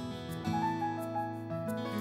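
Instrumental background music: a melody of notes that change every fraction of a second over a steady accompaniment.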